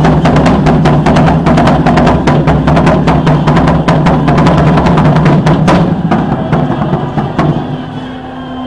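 Loud drum-led percussion music from a passing parade group, with fast, dense strikes. It breaks off about six seconds in, leaving a few scattered hits as it fades.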